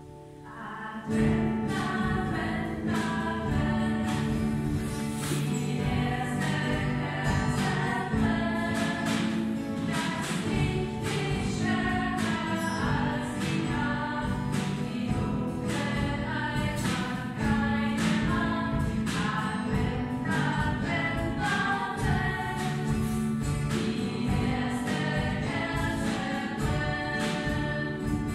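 Choir singing with instrumental accompaniment and a steady beat, coming in about a second in after a short pause.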